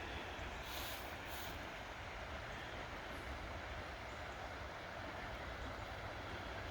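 Steady rushing of a large creek's flowing water, with two brief rustles about a second in.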